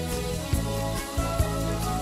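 Background instrumental music: held melodic notes over a soft, regular low beat.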